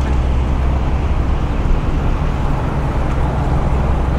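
Engine idling, a steady low drone, over a steady wash of outdoor city noise.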